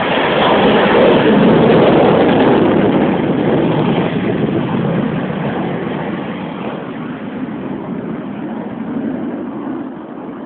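Loud aircraft flyby: a rush of engine noise, loudest about two seconds in, then slowly fading as the aircraft flies off.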